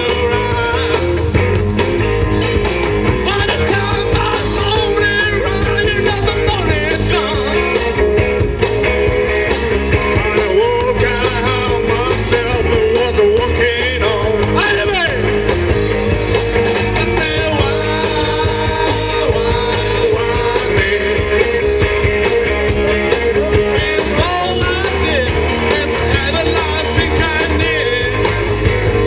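Live rock and roll band playing a song, with a singer and electric guitar.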